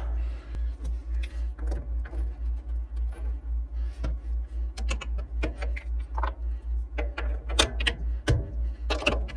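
Metal lathe running with a low hum that pulses evenly about four times a second, with scattered sharp metal clicks and clinks from tooling being handled.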